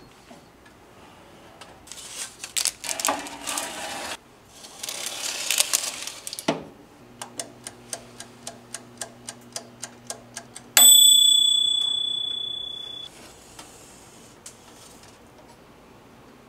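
Bruno toaster oven's dials turned with rapid ratcheting clicks, then its mechanical timer ticking at about four ticks a second over a steady hum of the oven running. A single bell ding marks the end of the timer and rings out over about two seconds.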